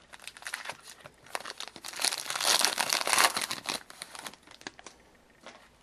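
Wrapper of a trading card pack being torn open and crinkled, loudest in the middle and dying away near the end.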